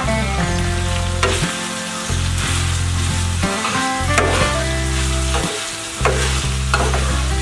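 Chopped meat frying and sizzling in a cast-iron grill pan, with a metal spatula stirring and scraping across the pan several times. Background music with low held notes runs underneath.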